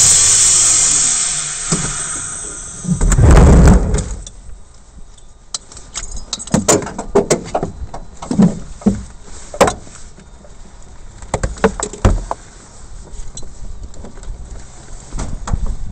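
Seat harness of a Yak-52 cockpit being unbuckled: many sharp metal clicks and clinks of the buckles and straps. Before that, a loud hiss fades out over the first couple of seconds and a loud low rumbling knock comes about three seconds in.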